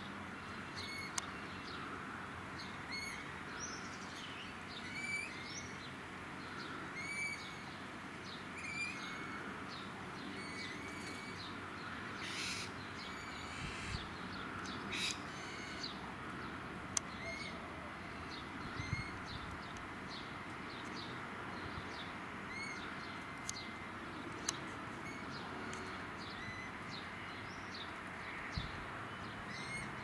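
Rainbow lorikeets calling in a palm tree: short, sharp calls repeating about once a second, with two longer harsh screeches near the middle.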